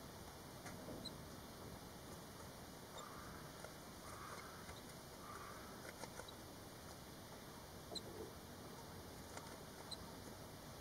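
Five-day-old barn swallow nestlings giving faint high squeaks every couple of seconds, with soft cheeping and small clicks and rustles as they stir.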